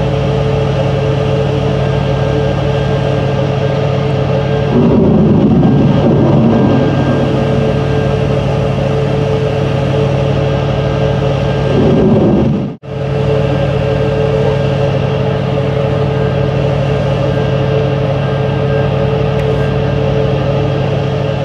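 Steady, loud machinery hum with a low drone and a higher steady tone, typical of shipboard engines and machinery on a vessel at sea. Swells of louder rumbling come about five seconds in and again around twelve seconds, and the sound drops out briefly just after.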